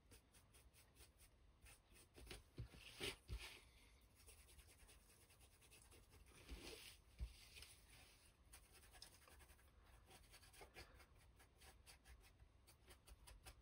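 Faint scratching and dabbing of a small brush working copper gilding wax onto laser-cut MDF, with a few soft knocks and rustles about two to three and a half seconds in and again around seven seconds.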